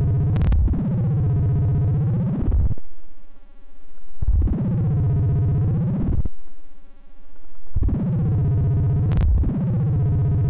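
Buzzing synthetic tone of a 3D printer's g-code toolpath (a vase test) played as a stereo audio signal for an oscilloscope's XY display. Its pitch swoops down and back up in repeated arcs of about two seconds, with a brief click about half a second in and another near the end.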